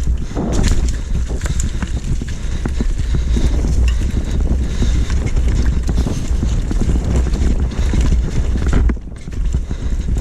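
Mountain bike riding over rough ground: a dense run of rattles and knocks from the bike, with wind rumbling on the microphone and a brief lull about nine seconds in.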